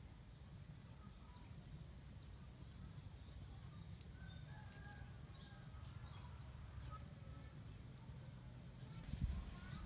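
Faint birds chirping with short high calls over a steady low rumble of wind on the microphone, with one dull thump near the end.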